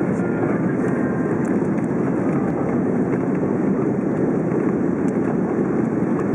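Steady roar of airflow and jet engines inside the cabin of an Airbus A330-300, heard over the wing as the airliner comes in low over the runway on landing.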